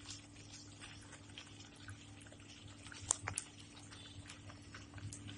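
Faint, scattered soft pops and ticks from thick masala gravy in a nonstick pan as paneer cubes are dropped into it one by one, with one sharper tick about three seconds in. A low steady hum runs underneath.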